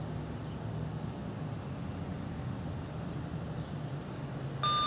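A low steady background rumble, then near the end a Federal Signal Modulator 6024 electronic siren starts a steady, high electronic alert tone that begins its test broadcast.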